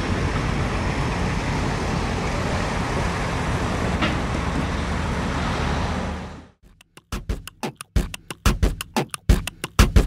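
Loaded logging truck (diesel semi tractor-trailer) driving past, a steady engine drone and road noise with a brief high squeak about four seconds in. The sound fades out about six and a half seconds in, and a music track with a steady thumping beat starts a second later.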